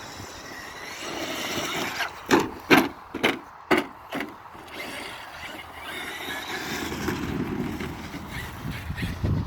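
Traxxas X-Maxx electric RC monster truck driving, its brushless motor whine rising and falling, with a run of sharp knocks about two to four seconds in and a louder thump near the end.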